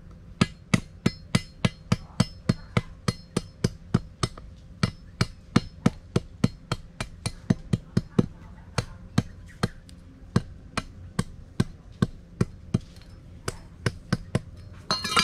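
A machete blade chopping a thin bamboo stick in quick, even strokes, about three a second, with a short pause about four seconds in.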